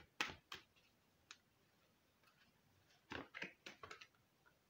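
Oracle cards being shuffled and handled: faint, quick card clicks, a few near the start and a fast run of them about three seconds in.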